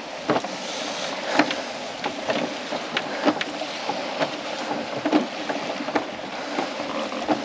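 Sailboat under way: a steady rush of wind and water along the hull, with irregular light knocks and rattles as lines are handled in the cockpit.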